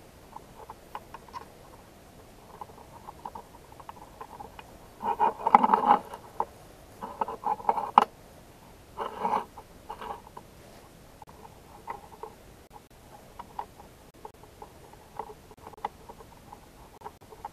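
Small metal parts of a model steam engine being handled and fitted by hand: light clicks and scrapes of metal on metal, with louder bursts of rattling and scraping about five, seven and nine seconds in.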